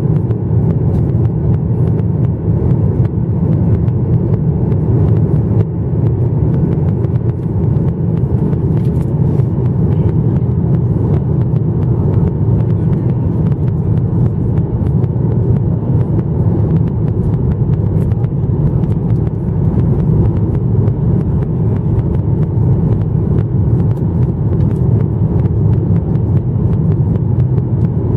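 Steady low rumble of airflow and engine noise inside the cabin of a Boeing 737-900ER, heard from a window seat behind the wing, with the aircraft cruising on its descent toward landing.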